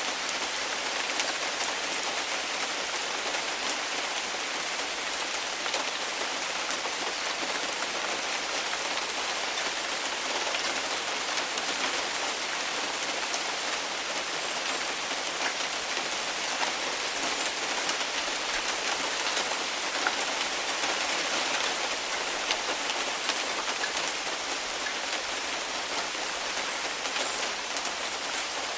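Heavy rain falling steadily, a dense even hiss with many small drop ticks.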